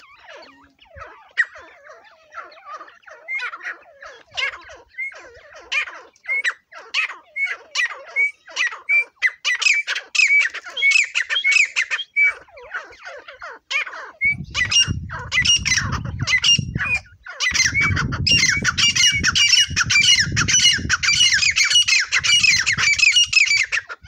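Grey francolins (teetar) calling: a fast, overlapping run of short, harsh, repeated calls that grows louder and busier in the second half. A low rumble comes in about halfway through.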